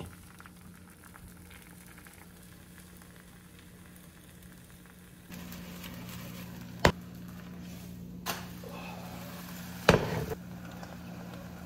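Egg white frying as a thin omelette in an oiled nonstick pan on low heat, a faint sizzle. A low hum comes in about five seconds in. Two sharp knocks, the loudest sounds, come as the pan is lifted and set back on the glass-top stove, with a lighter knock between them.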